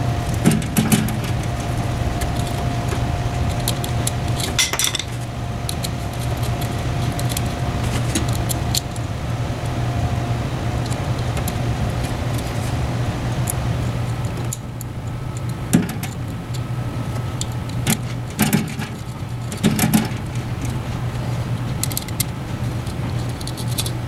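Scattered small metallic clicks and clinks from a screwdriver, screws and ring terminals as wires are fastened to the terminals of a rotary switch, a few near the start and a cluster about two-thirds of the way through, over a steady low hum.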